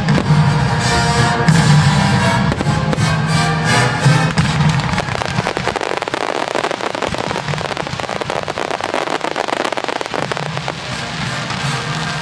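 Fireworks display finale: many rapid bangs and crackles over loud music. About halfway through, the music's bass drops out and the barrage turns into a dense, fast crackling. The bass comes back near the end.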